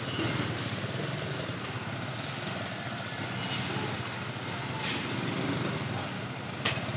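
Street traffic at close range: motorcycle engines and a truck engine running at low speed in a jam. A sharp click near the end.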